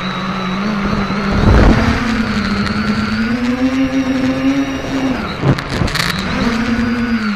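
SK450KK2 quadcopter's electric motors and propellers whining steadily, the pitch rising and falling as the throttle changes. A brief rush of wind on the microphone about a second and a half in, and about five and a half seconds in the pitch drops sharply and climbs back as the throttle is cut and reapplied.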